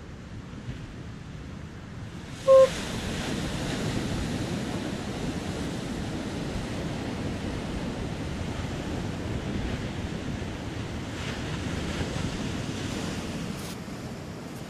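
Surf and wind on a beach, with wind buffeting the microphone, louder from about two and a half seconds in. At that moment a short, loud electronic beep sounds once.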